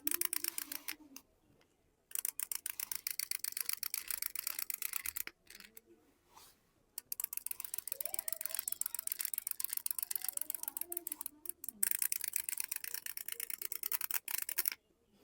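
Rapid, even ratcheting clicks from a toy's plastic gear mechanism, in several runs a few seconds long separated by brief pauses.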